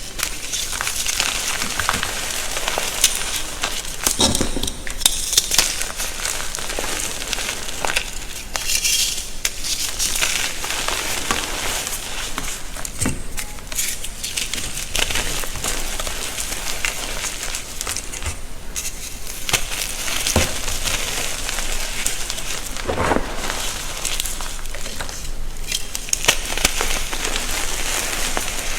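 Blocks of gym chalk being crushed and crumbled, a continuous dense crunching and crackling with a few louder crunches along the way.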